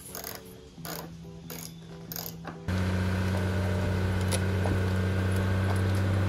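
Hand ratchet wrench clicking on a toy tractor's wheel nut, a few separate clicks over faint background music. About two and a half seconds in, a loud steady low mechanical drone with a fast rattle starts abruptly and drowns it out.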